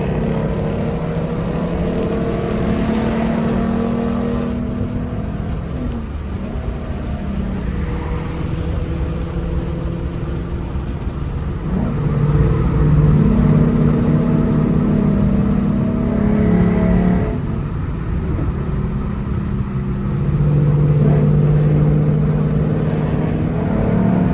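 2014 Mustang V6's 3.7-litre V6 breathing through BBK shorty headers and a Roush axle-back exhaust, pulling steadily under load while driving. It gets louder about halfway through and again near the end, with brief rises in pitch as it revs.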